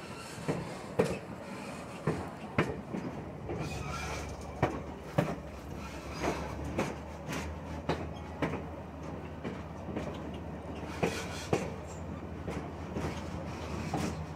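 Railroad car wheels clacking over rail joints, the clicks coming mostly in pairs about half a second apart, over the steady low rumble of a diesel-hauled train rolling along.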